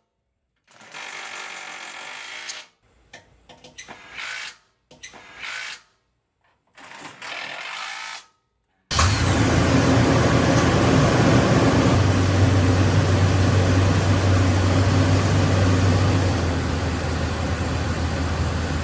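Short, broken bursts of power-tool work. About halfway through, a loud, steady vehicle engine sound with a constant low hum starts abruptly and runs on.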